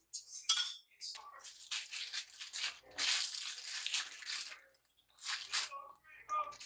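Rustling and crinkling in irregular bursts, some short and some lasting about a second, with brief pauses between them.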